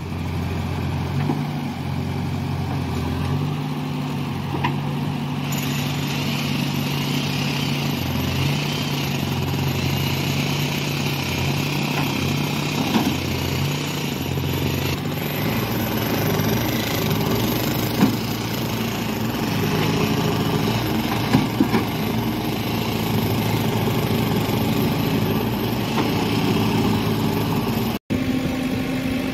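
JCB backhoe loader's diesel engine running steadily under load while the backhoe digs into rubble, its engine note shifting about halfway through. A few sharp knocks come from the bucket working the stones.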